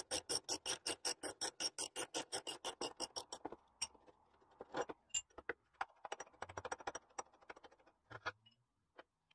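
Socket ratchet clicking in a fast, even run, about six clicks a second, as a leaf-spring shackle nut is wound off; it stops about three and a half seconds in. A few scattered metallic clicks and knocks follow as the shackle is worked off its mounting.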